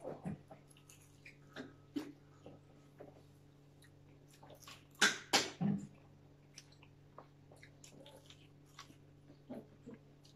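Close-up eating sounds of two people chewing chicken wings and a sandwich: wet chewing, lip smacking and small clicks, with a louder run of smacking about five seconds in. A faint steady hum sits underneath.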